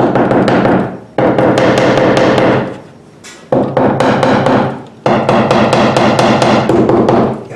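A hammer rapidly tapping the rusted fuel pump lock ring on top of a truck's fuel tank to loosen the rust. It comes in four runs of quick strikes with a ringing tone, broken by short pauses.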